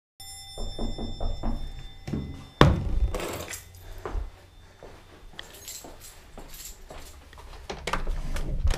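Handling noise from a handheld camera being carried around a room: irregular knocks, thuds and rustling over a low rumble, with one sharp thunk about two and a half seconds in.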